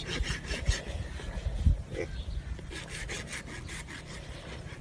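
A horse's muzzle and teeth rubbing and scraping over a shirt as it grooms a person's back: quick, irregular rasping strokes, with a few dull low thumps in the first two seconds.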